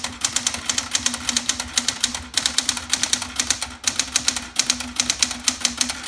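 1973 Smith Corona Sterling manual portable typewriter being typed on at a quick pace, its keys and type bars striking in rapid clicks, several a second, with brief pauses about two and four seconds in.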